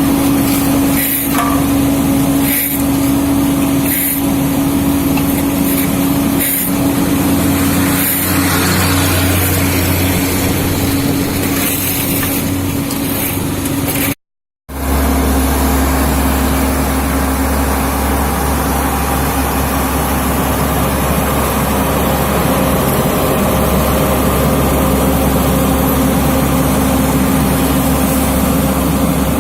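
Heavy road-works machinery at a cold-milling and asphalt-paving job, engines running steadily with a constant hum, with scattered knocks and clatters in the first half. The sound cuts out for a moment about halfway, then carries on with a stronger low rumble.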